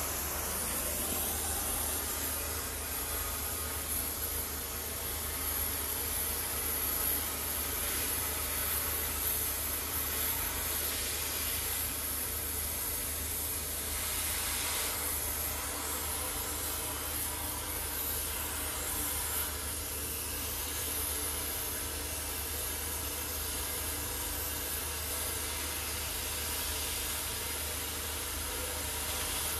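Gas cutting torch hissing steadily as it burns through the steel of a wheel centre.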